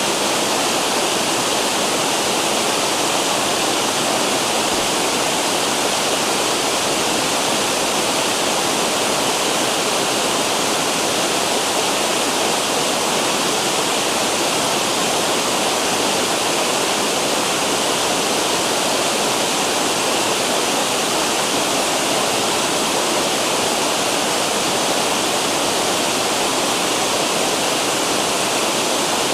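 Water pouring down river cascades in a steady, loud rush of white water.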